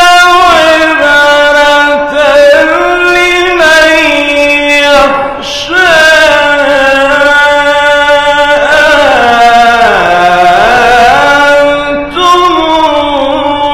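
A man's voice reciting the Quran in the melodic Egyptian mujawwad style. He holds long, ornamented notes that glide up and down, with a long falling and rising run about nine to eleven seconds in.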